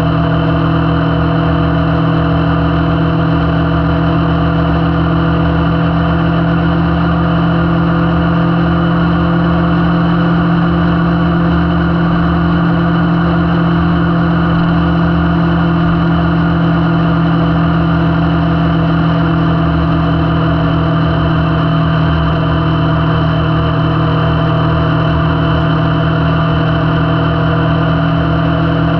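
Kawasaki Vulcan S's 649 cc parallel-twin engine running steadily at cruising speed, its note holding one pitch throughout, with a constant rush of wind and road noise.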